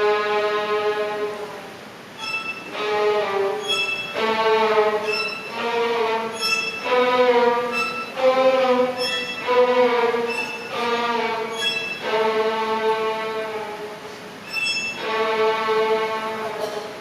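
Orchestral strings, violins leading, playing a slow melody of long held notes, one or two seconds each. Short high pinging notes sound between and over them at intervals.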